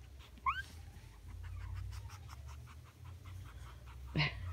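A Chihuahua puppy gives one short, high, rising squeak about half a second in, followed by the low rumble and rustle of puppies scrambling over a lap.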